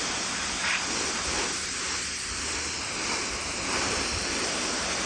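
Pressure washer spraying: a steady hiss of the water jet on the surface being cleaned.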